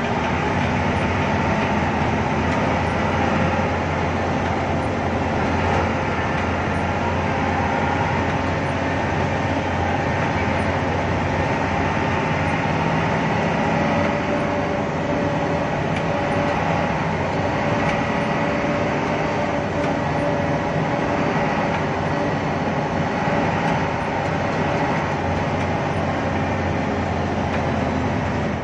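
Cabin noise of a Hino AK8 intercity bus under way on a wet road: a steady drone from its turbo-diesel engine with tyre hiss, and a thin steady whine above it.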